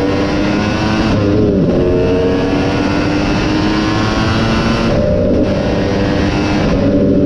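KTM 250 SX two-stroke motocross bike engine running hard under race throttle, its pitch climbing, with sharp breaks in the engine note about a second in and again about five seconds in as the throttle is closed or the bike shifts.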